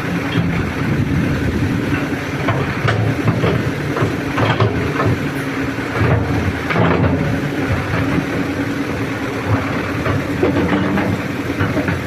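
Excavator diesel engine running steadily while the machine works the homemade quick coupler onto its bucket, with a few short knocks in the middle.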